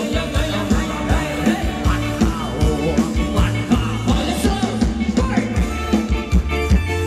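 Live band playing upbeat dance music: a drum kit keeping a steady beat under electric guitar and bass, with a singing voice over it.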